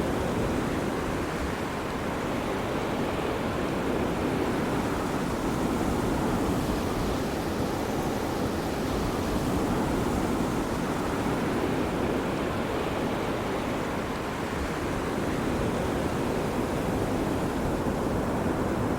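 Ocean surf washing onto a beach: a steady, unbroken rush of waves with only gentle rises and falls in level.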